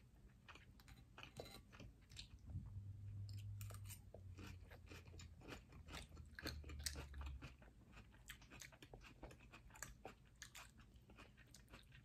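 Faint close-up chewing of salmon and lobster: a steady run of small wet mouth clicks and smacks. A low hum joins in from a couple of seconds in until about halfway through.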